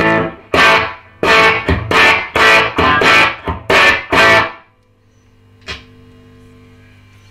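Electric guitar strummed through a Peavey Classic 30 tube combo amp in a quick run of chords that stops about four and a half seconds in. The amp is left humming steadily, with a single click near the end; the player puts the hum down to standing right in front of it. The newly rebuilt amp is working on its first test.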